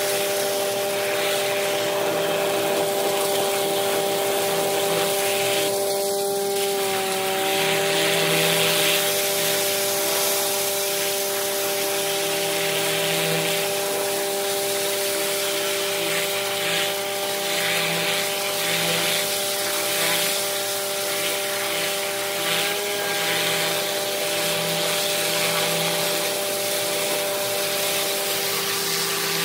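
Hydro-excavation rig running: a steady mechanical whine from its pump and vacuum machinery under the hiss of a high-pressure water wand blasting into gravel and soil. The whine dips briefly in pitch a couple of times.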